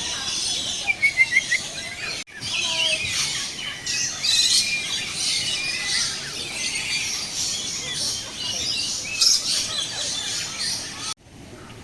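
Many birds chirping and calling together in a dense, overlapping chorus of short high notes, with a quick run of about six rising notes about a second in. The sound cuts off abruptly about two seconds in and again near the end.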